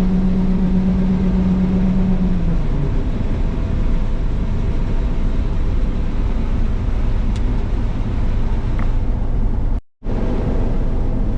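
Combine running while harvesting soybeans, a steady drone heard from inside the cab. A strong low hum drops out about two and a half seconds in, and the sound cuts out for an instant near the end.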